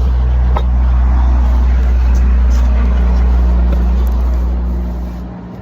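Loud low rumble and rustling handling noise as the camera is picked up and moved back, with one light knock about half a second in.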